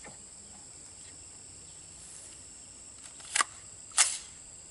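Two sharp clicks about half a second apart, the second louder, from an ATI Omni Hybrid AR-15 being handled as a 20-round magazine is put in. Crickets drone steadily throughout.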